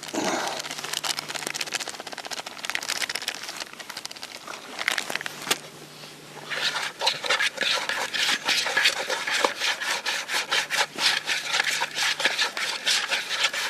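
Damp fishing bait meal being stirred together with corn flour and water: a quick, continuous run of gritty scraping and rubbing strokes, thinning out for a moment partway through and then getting busier again.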